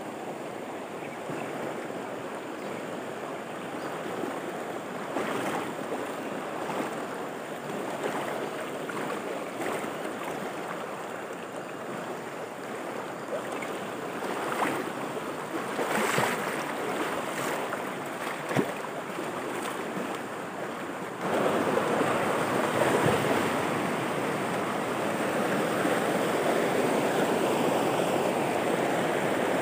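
Fast, shallow river rushing over rocks and boulders in rapids: a steady noise of running water that jumps suddenly louder about two-thirds of the way through.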